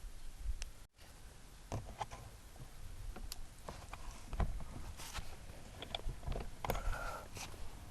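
Scattered light clicks and knocks of tools and parts being handled during car door lock repair work, at uneven intervals.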